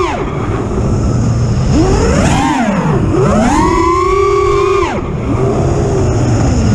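Supafly Flipmode FPV quadcopter's T-Motor F60 Pro II 2500kv brushless motors and propellers whining. The pitch drops sharply each time the throttle is chopped during a flip or dive, then climbs back to a high steady whine as it is punched again, three times.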